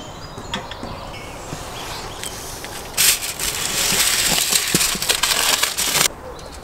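A metal roasting pan being handled in a wood-fired brick oven, with a few light clicks and scrapes. About three seconds in, a loud crackling sizzle of meat roasting in the hot pan starts, then cuts off suddenly near the end.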